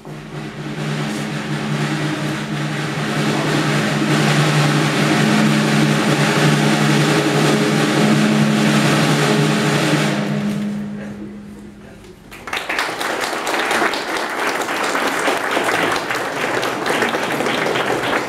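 Snare drum roll that swells in over the first few seconds, holds steady, and fades out after about ten seconds. Then applause breaks out and continues.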